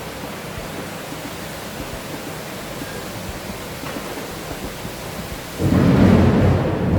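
Steady rain, then about five and a half seconds in a loud, low rumble of thunder breaks in and rolls on.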